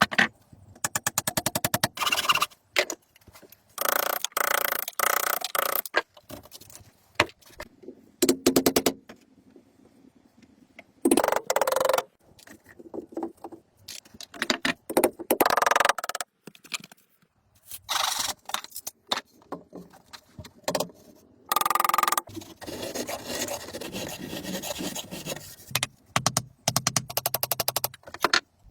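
Building work noises in short bursts: scraping and rapid clicking or rattling strokes, stopping and starting every second or two.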